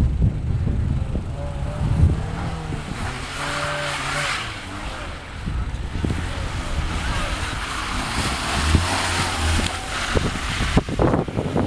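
Convertible sports car's engine revving up and down as it manoeuvres at low speed, with wind rumbling on the microphone.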